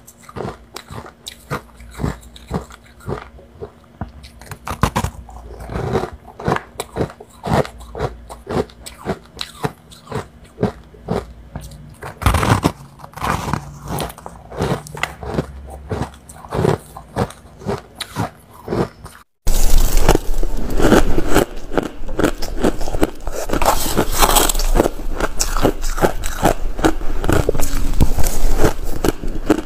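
A person biting and chewing fluffy white freezer-frost ice: a steady run of crisp crunches. About two-thirds of the way through comes an abrupt cut to louder, denser crunching as spoonfuls of snow-like ice are chewed.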